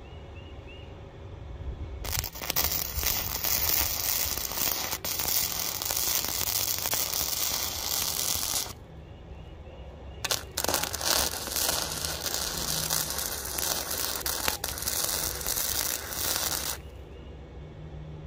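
Flux-core wire-feed welder's arc crackling in two runs of about six seconds each, with a pause of about a second and a half between them.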